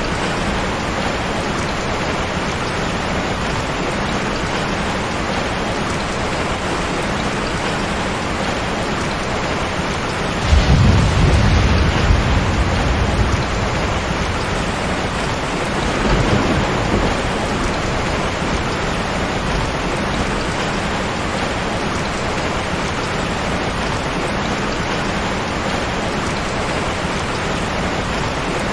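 Heavy rain falling steadily, with a sudden loud rumble of thunder about a third of the way through that lasts a few seconds, and a second, fainter rumble a few seconds after it.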